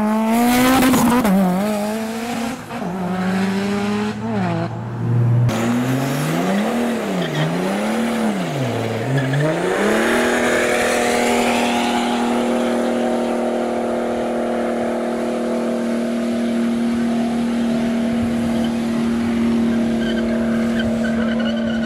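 Modified car's engine revved up and down several times, then held at constant high revs for about the last twelve seconds, with tyre squeal, as in a burnout or drift.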